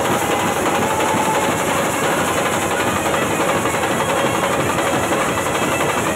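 Indian procession brass band's marching bass drums beating a fast, dense rhythm, with a faint held brass note underneath.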